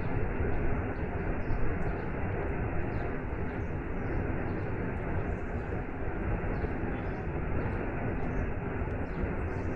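Waterfall and rain: a steady, even rush of falling water.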